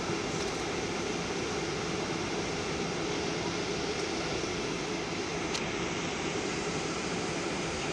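Steady jet engine and airflow noise heard inside the cabin of a Boeing 737-900 during departure, its CFM56 turbofans at high power. A faint single click about five and a half seconds in.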